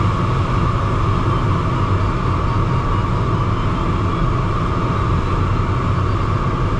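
Steady rush of airflow over a DG303 glider's canopy, heard inside the cockpit in unpowered flight: an even, unbroken noise with a deep rumble underneath.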